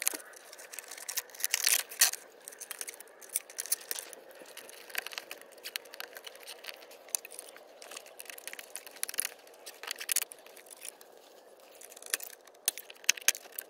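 Plastic cable ties being fed through and pulled tight, with quick ratcheting zips and clicks scattered irregularly, as a cover is fastened on in place of its broken clips.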